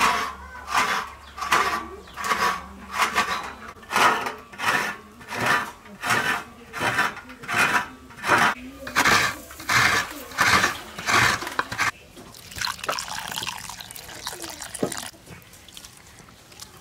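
Hands splashing and rubbing in a bowl of water, a regular stroke nearly twice a second, then softer uneven sloshing from about twelve seconds in, which stops near the end.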